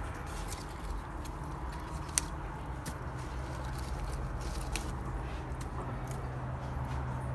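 Steady low mechanical hum under scattered light clicks and handling rustles, with one sharp click about two seconds in.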